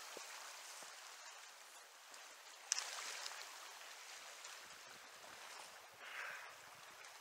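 River current running over rocks, a steady rushing hiss. A single sharp click comes close to three seconds in.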